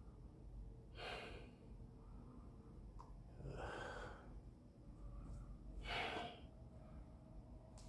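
A person breathing heavily: three loud breaths about two and a half seconds apart, the last the loudest.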